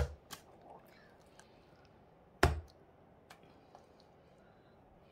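A few sharp knocks of a spatula against the dishes while cheesecake filling is scraped out, the loudest about two and a half seconds in.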